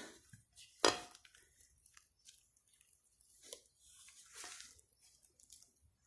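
Kitchen handling sounds while flour is added to dough in a mixing bowl: a sharp knock about a second in, then faint scrapes, ticks and soft rustling.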